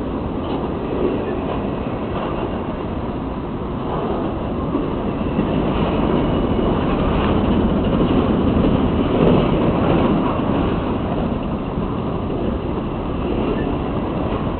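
Freight train of grain cars rolling past, a steady rumble of steel wheels on the rails that grows louder about halfway through and then eases slightly.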